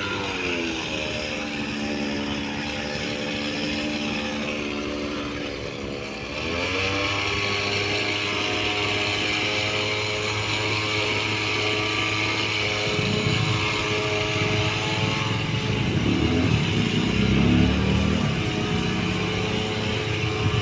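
Engine of a tree-cutting machine running under changing load: its pitch drops near the start, climbs back about six seconds in, then holds steady. From about thirteen seconds in, irregular low rumbling and crackling sounds join it.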